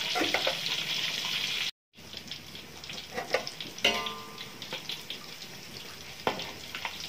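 Tofu deep-frying in oil in a wok, being cooked until dry and crisp: a steady sizzle, then a short break and a quieter crackling fry. A metal spatula clicks against the wok several times, with one ringing knock about four seconds in.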